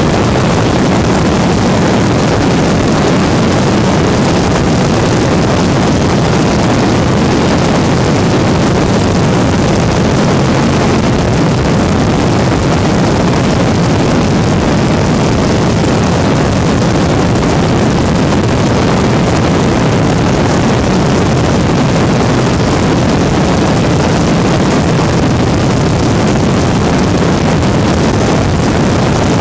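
Weedhopper ultralight's engine and propeller running steadily at cruise power in flight, a loud constant drone mixed with wind rush.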